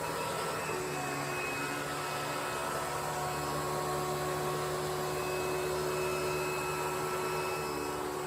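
Hoover Elite Twin Chamber bagless upright vacuum, a 6.9 amp direct-air model, running steadily: an even motor whine and airflow rush.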